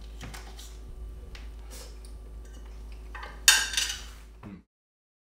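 Quiet kitchen room tone with a few faint clicks, then one sharp clink of dishware or cutlery about three and a half seconds in, which fades over about a second before the sound cuts off.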